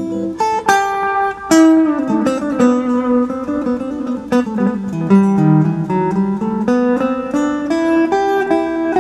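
Telecaster-style electric guitar played with a clean tone: a run of plucked single notes and chords, each note struck sharply and ringing briefly.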